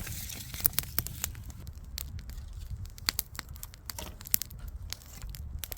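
Newly lit campfire crackling, with many sharp, irregular pops and snaps over a steady low rumble.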